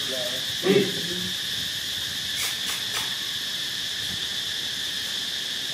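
Steady, high-pitched drone of an insect chorus. Under a second in, a short vocal sound, a brief call or voice, cuts in once and is the loudest moment.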